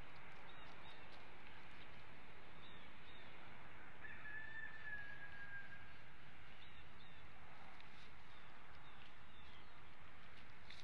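Steady outdoor background hiss with faint short bird chirps coming in pairs every two to three seconds, and a single held, slightly falling tone lasting about two seconds near the middle.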